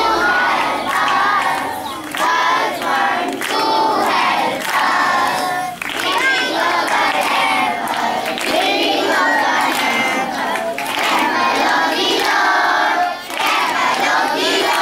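A large group of children singing loudly together in chorus, with hand clapping along.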